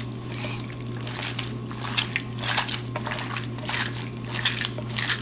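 Bare hands kneading and squeezing skirt steak in its marinade in a glass baking dish: irregular wet squelches and sloshes, about two a second.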